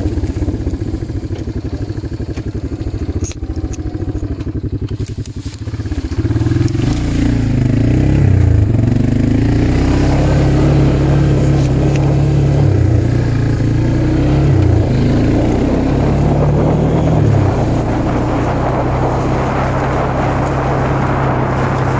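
ATV engine running at low revs with a fast, even pulse. About six seconds in it gets louder and runs harder, its pitch rising and falling as the throttle changes.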